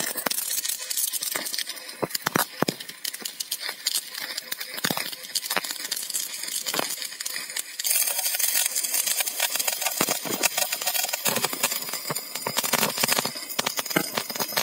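Stick (MMA) electrode welding arc on steel, crackling and sputtering continuously with many sharp pops as the bead is laid. It grows steadier and louder about eight seconds in.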